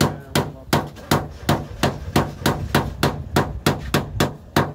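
Hand hammer striking the lower door sill of a vehicle in a steady run of blows, about three a second, each with a short ring.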